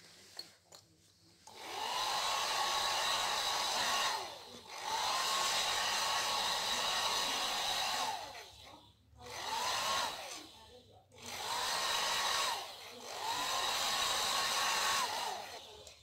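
Small budget handheld hair dryer switched on and off five times. Each run is a rushing blow with a motor whine that rises as the motor spins up and falls away as it stops.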